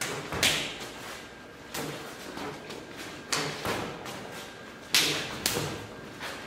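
Sharp slaps and thuds of open palms parrying straight left-right punches, several times, some in quick pairs.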